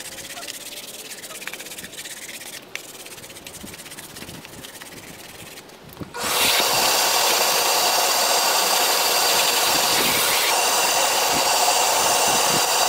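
A stiff hand brush scrubbing a carpeted car floor mat with a scratchy rubbing sound. About six seconds in, a wet/dry shop vacuum switches on and runs loudly and steadily with a high whine, dry-vacuuming the loosened dirt from the mat.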